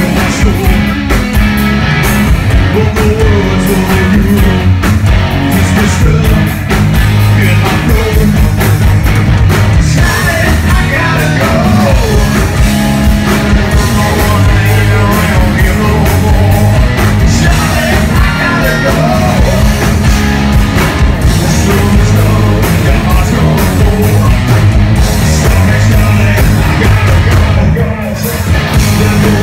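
Live hard rock band playing loud, with electric guitars, bass and drums and a male lead vocal sung into a microphone.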